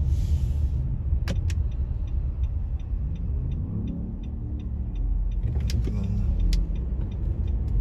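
Car driving on an expressway, heard from inside the cabin as a steady low road rumble, with a light regular ticking about three times a second through most of it and a few single clicks.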